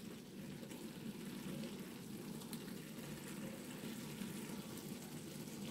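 Pot of okra stew simmering, a faint steady bubbling.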